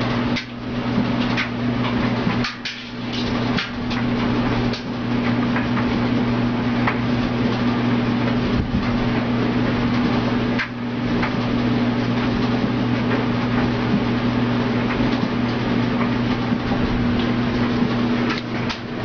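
Washing machine running with a steady hum and an even whirr, with scattered knocks and clicks, most of them in the first few seconds.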